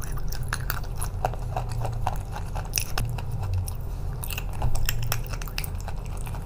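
A person chewing and biting chalk, with many short, sharp crunches as it breaks between the teeth.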